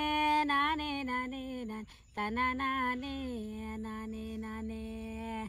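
An older woman singing a tribal folk song solo, with no instruments. Two phrases with a short break between them; the second settles into one long held note.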